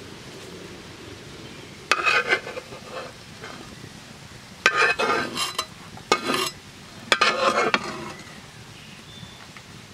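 A knife blade scrapes grilled zucchini pieces out of a hot black metal pan onto a wooden board: four short bursts of metal scraping on metal, with the pieces sliding and dropping.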